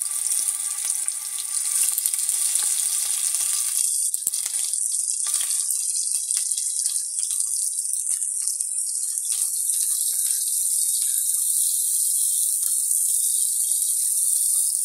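Hot oil sizzling in a frying pan as round tomato slices fry in it: a steady hiss with scattered spattering crackles.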